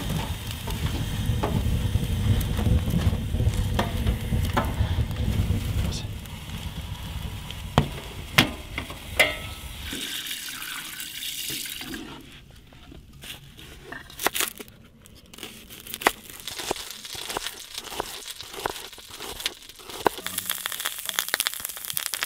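A steady low rumble for about the first ten seconds, then a wooden spatula scraping in a pot and a knife chopping shallots on a cutting board in sharp clicks. Near the end, shallots and garlic start sizzling in butter in a cast iron skillet.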